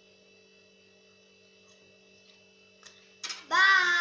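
Faint steady electrical hum, then about three seconds in a child's voice breaks in loudly, singing one long held note.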